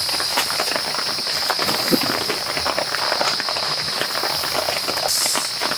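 Steady rain pattering in dense, irregular drops, with a constant high hiss behind it.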